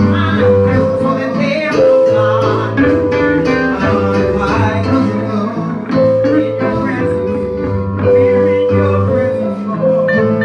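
A gospel church band playing, led by guitar over a bass line, with voices singing along.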